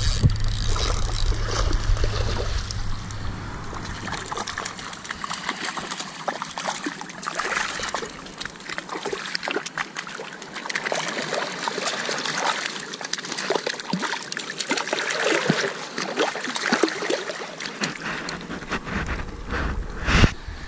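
Water splashing and trickling around shoreline rocks as a hooked juvenile red drum (puppy drum) is brought in and landed, with many scattered sharp clicks and knocks. A low wind rumble on the microphone fades after about five seconds and returns near the end.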